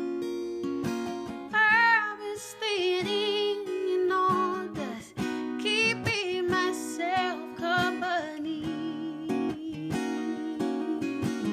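Acoustic guitar playing a song, with a woman's voice singing high, sustained notes with a wide vibrato over it for most of the stretch.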